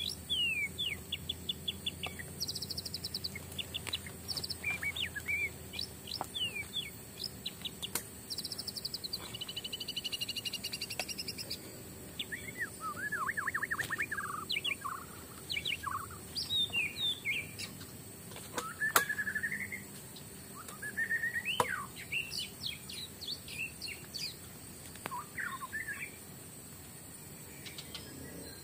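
Forest birds calling throughout: many short chirps, whistled sweeps and quick trills from several birds, over a steady high-pitched insect drone. A few sharp clicks cut in, the loudest about two-thirds of the way through.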